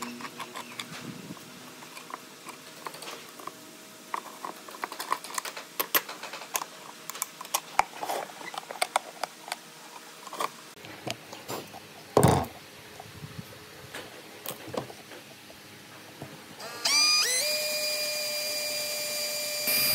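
Light clicks and knocks of wooden parts and hardware being handled, with one louder thump about twelve seconds in. Near the end a power drill spins up and runs steadily with a high whine, boring into the wooden slat base.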